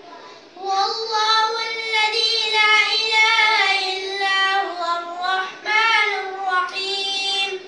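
A boy's voice chanting a long melodic line unaccompanied, with held notes that bend and waver. It starts about half a second in and breaks off briefly twice near the end.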